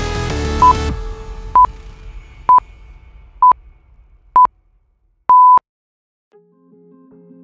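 Workout interval-timer countdown: five short electronic beeps at one pitch, about a second apart, then one longer beep, marking the end of an exercise interval. Electronic music fades out under the first beeps, and soft guitar music begins near the end.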